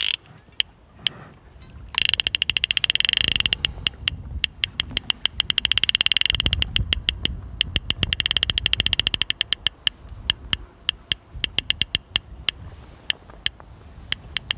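A multiplier fishing reel's drag clicking as a hooked wels catfish pulls line: fast runs of clicks about two seconds in, with short pauses between them, then slower, scattered clicks.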